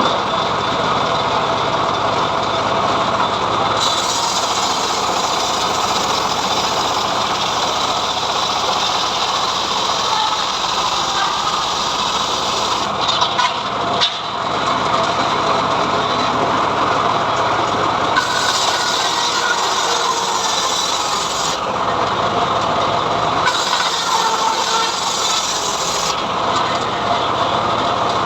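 Homemade engine-driven log band saw (srekel) running steadily while cutting a mahogany log. A higher hiss comes and goes several times over the steady machine noise.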